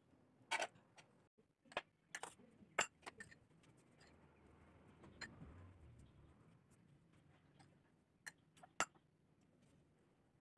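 Scattered light clicks and taps of a knife and spoon against a plate and a small jam bowl, with a soft scraping of jam being spread on sponge cake about halfway through.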